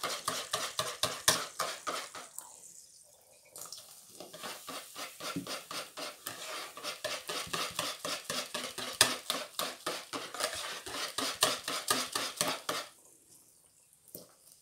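Wire whisk beating pancake batter in a bowl, with rapid clicking of the wires against the bowl's sides. It pauses briefly about two and a half seconds in, then stops about a second before the end.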